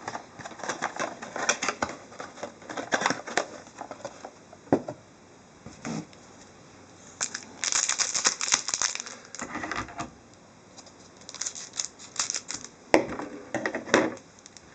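Hockey card packs and their box being handled and torn open: crinkling foil wrappers and cardboard in irregular bursts of rustling and clicking, busiest a little past the middle and again near the end.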